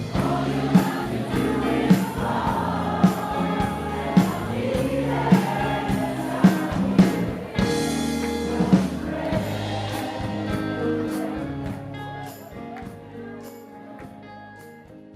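Choir singing over a band accompaniment with a steady beat about once a second, fading out over the last few seconds.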